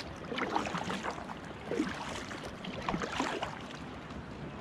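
Double-bladed kayak paddle dipping into and pulling through calm sea water: two strokes a couple of seconds apart, each with splashing and dripping.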